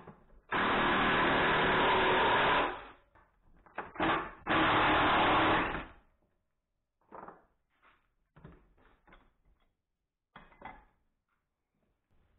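Ryobi cordless impact driver running hard in two long bursts, driving a lag screw into wood. Afterwards come a few light knocks as the tool and parts are handled on the bench.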